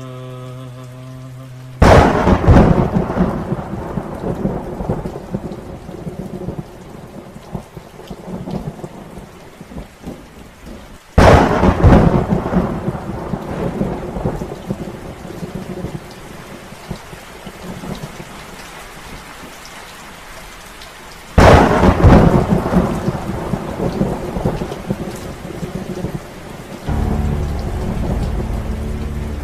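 Thunderstorm sound effect: three loud thunderclaps about ten seconds apart, each rumbling away over several seconds, over steady rain. A held musical chord comes in near the end.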